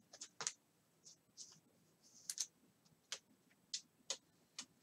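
Trading cards being handled: scattered light clicks and taps with a few short rustles, irregularly spaced.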